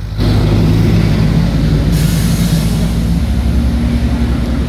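A motor vehicle's engine running steadily close by, coming in loudly just after the start, with a hiss joining it about two seconds in.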